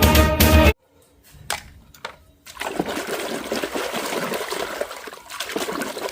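Water splashing and trickling as toy cars are washed, starting about two and a half seconds in after a couple of soft knocks. Background music plays at the start and cuts off abruptly before the first second is out.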